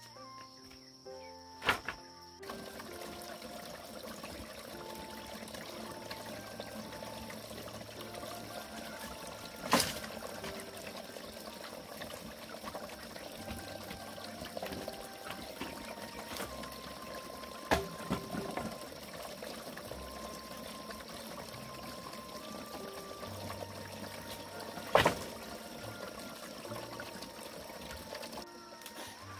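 Steady running or pouring water under soft background music, with four sharp knocks spaced about eight seconds apart.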